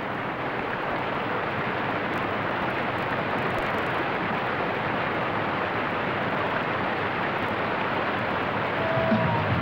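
Steady rushing of whitewater in a river rapid. Guitar music begins near the end.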